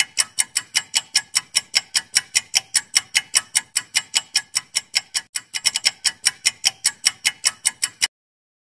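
Clock-style ticking sound effect for a quiz countdown timer, about five even ticks a second, cutting off suddenly about eight seconds in.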